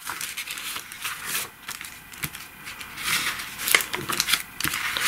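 Paper envelopes being handled, shuffled and slid across a cloth-covered table: a dry rustling with a few sharp taps, busier in the last couple of seconds.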